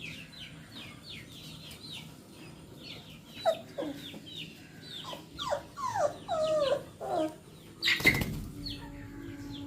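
Labrador puppies whining and yelping in a string of falling cries through the middle, over rapid high bird chirping that runs throughout. A loud bump comes near the end, followed by a steady low hum.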